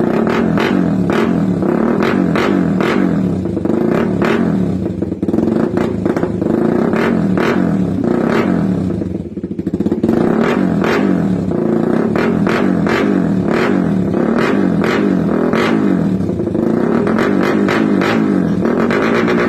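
Motorcycle fitted with a Daeng/CHA/Apido-style replica aftermarket exhaust pipe, running loud and being revved, with one brief drop in engine speed about halfway.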